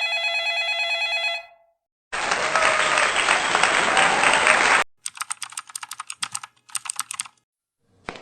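Three separate sound effects in a row. First an old-style telephone bell ringing with a fast trill, which stops about a second and a half in. Then about three seconds of dense noise like applause, followed by two quick runs of clicks like typing on a keyboard.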